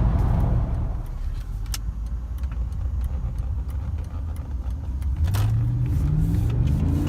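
Mercedes-Benz C43 AMG's V8 engine running quietly after easing off, with a few light clicks and rattles, then from about five and a half seconds in accelerating hard, its pitch climbing steadily.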